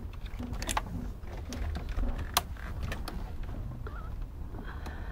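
Scattered clicks and knocks of a car's plastic dashboard trim being handled and pried with pliers, the sharpest a little over two seconds in, over a steady low rumble.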